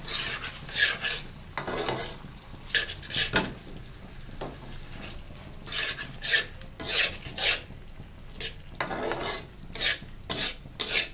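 Metal spatula scraping and stirring thick chicken liver masala in a black iron kadhai, in irregular rasping strokes about two a second, with a faint sizzle underneath. This is the bhuna stage: the masala is being fried down until the oil separates.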